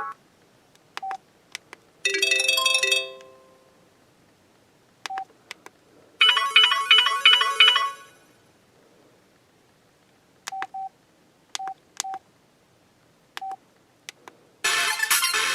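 Samsung Convoy 4 flip phone ringtones being previewed: a short chime melody about two seconds in, a quick repeating pattern of tones around six to eight seconds, and a fuller electronic ringtone starting loudly near the end. Between them come brief single beeps, scattered as if from keys pressed to step through the menu.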